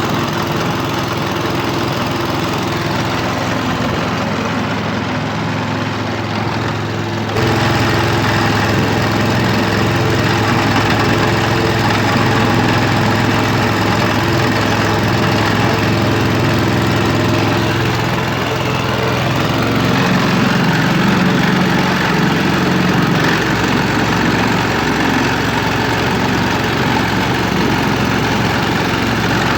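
Motorboat engine running steadily, getting abruptly louder about seven seconds in.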